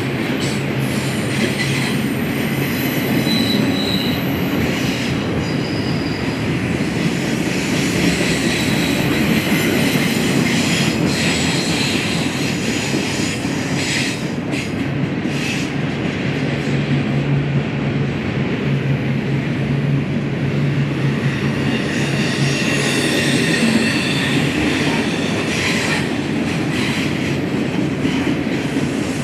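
BNSF freight train rolling past, its cars' wheels squealing with thin high tones and clicking over the rail joints, over a steady low hum.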